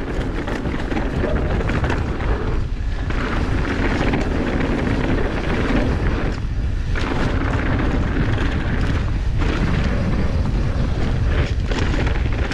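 Steady rush of wind rumble on the microphone of a mountain bike rider, mixed with tyre and bike rattle on a dirt singletrack descent. The rush dips briefly a few times.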